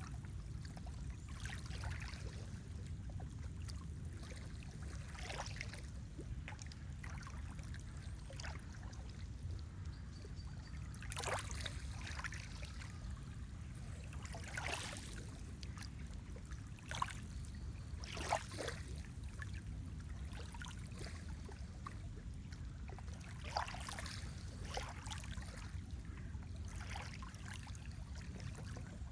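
Lake water lapping in small, irregular splashes over a steady low rumble.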